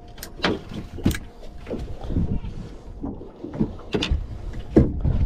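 Water lapping and slapping against the hull of a drifting boat, with irregular sharp knocks and a low wind rumble on the microphone; the loudest knock comes near the end.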